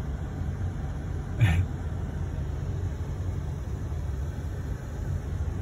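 Car idling, a steady low rumble heard from inside the cabin, with a short throat noise from a person about a second and a half in.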